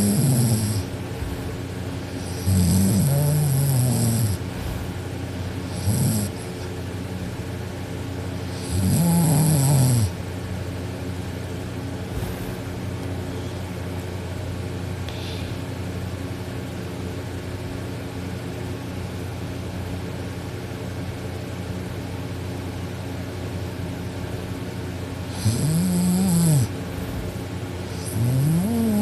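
Teenage girl snoring loudly in deep sleep: harsh snores about a second long that rise and fall in pitch, four in the first ten seconds, then a gap of about 15 s before two more near the end. A steady hum runs underneath.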